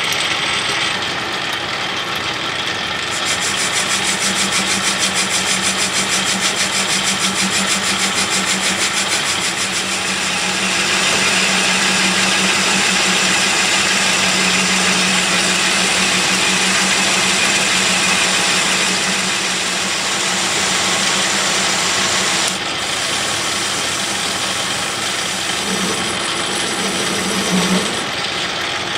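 Metal lathe running while a carbide insert turns down a cast iron bar: a steady motor hum under the hiss of the cut. The high cutting hiss drops off sharply about three-quarters of the way through.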